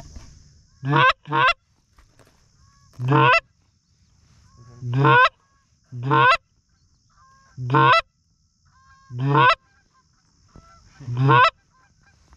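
Goose call blown by a hunter: eight loud honks, each sliding sharply up from a low moan into a high crack, the first two close together and the rest a second or two apart. Fainter goose honks sound in the gaps.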